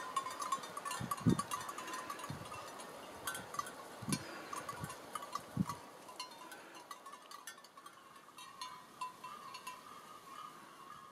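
Bells on grazing sheep clanking irregularly, a constant jangle of many small metallic strikes that thins out in the second half. A few dull low thumps come through in the first half.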